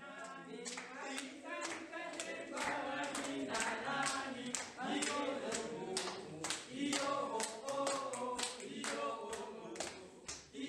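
A group of voices singing together in unison, with rhythmic hand-clapping keeping time throughout.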